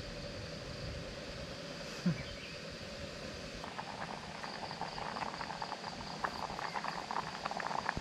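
Insects chirring steadily. About three and a half seconds in, rapid bubbling and popping starts: rice porridge boiling in a pot on a portable butane gas stove. There is a short low thump about two seconds in.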